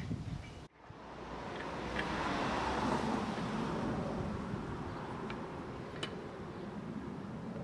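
Road traffic noise from a passing car, starting after a brief dropout, swelling to its loudest about three seconds in and then easing off. A few faint light clicks come through it.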